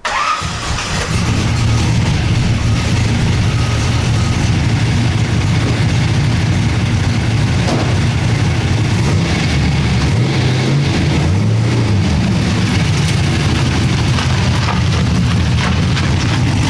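Rat-rod Chevy LUV pickup's engine running loud and hard during a burnout, its revs falling and rising about two-thirds of the way through and climbing again near the end.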